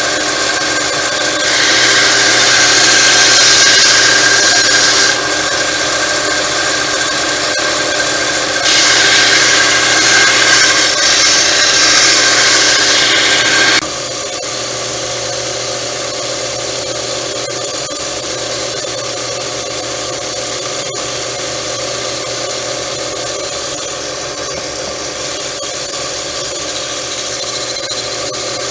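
1x30 belt sander running, with a steel knife blade pressed to the abrasive belt in two stretches of loud hissing grinding. After about 14 seconds it drops to a quieter, steady running sound.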